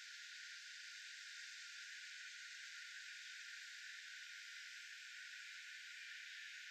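Faint, steady hiss with no calls, clicks or other distinct sounds.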